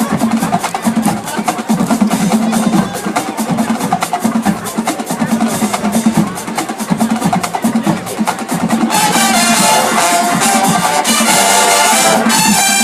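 Marching band drumline playing a fast cadence of snare and bass drums. About nine seconds in, the brass section comes in loudly and plays over the drums.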